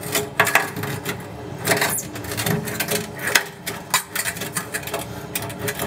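Snap-off utility knife blade slicing and scraping through old silicone sealant on aquarium glass: a quick, irregular run of short scraping strokes and clicks.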